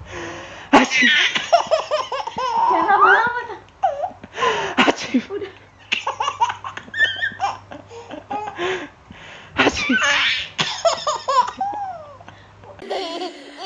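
A baby laughing in repeated bursts, with short pauses between them.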